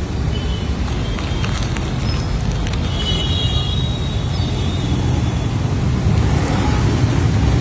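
Steady low rumble of street traffic, with a faint thin high tone for a second or so about three seconds in.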